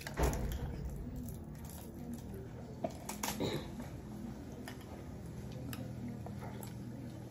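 Children eating from small ceramic bowls: spoons tapping and scraping the bowls, with mouth sounds of eating. A dull knock is the loudest sound, just after the start, and a sharp click comes about three seconds in, over a low steady hum.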